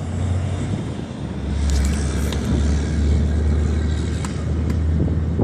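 A man making car-engine noises with his voice: a loud, steady low drone that swells about a second and a half in.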